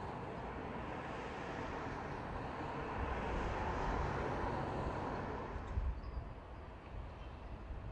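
Diesel railcar running, its rumble swelling to a peak about four seconds in and then easing off, with a couple of sharp knocks about six seconds in.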